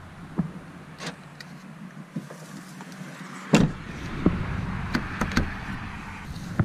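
A truck door slammed shut with one loud knock about three and a half seconds in, followed by several sharp clicks of the outside door handle and latch being worked.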